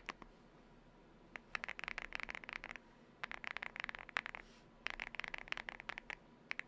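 Galaxy80 mechanical keyboard with lubed Aflion Ink switches, tape and foam mods, being typed on in fast bursts of keystrokes. After about a second and a half of quiet come four runs of rapid key presses, each about a second long, with short pauses between them.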